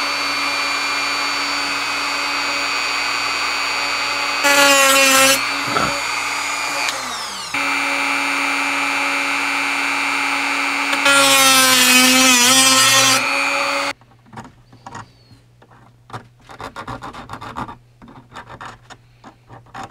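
Dremel rotary tool with a cut-off wheel running with a steady whine, twice getting louder with its pitch dipping as the wheel bites into the metal rail of HO scale Atlas flex track. It cuts off suddenly about two-thirds of the way through, leaving light clicks and rubbing as the cut track is handled.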